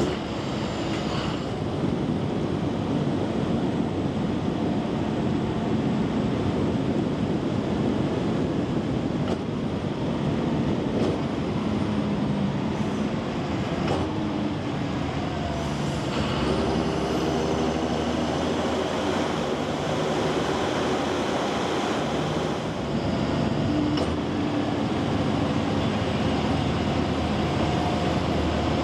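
John Deere 7530 tractor's six-cylinder diesel engine running as the tractor is driven, the engine note shifting in pitch about halfway through.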